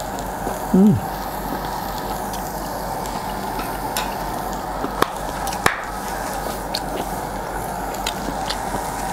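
Shrimp sizzling on a hot WMF tabletop grill plate: a steady hiss with a few sharp clicks, and a brief voiced 'mm' just under a second in.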